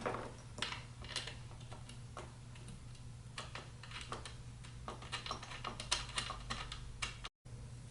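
Irregular light clicks and taps of flat-pack furniture being put together by hand: an Allen key working screw bolts while the wooden panels are handled. The sound cuts out briefly near the end.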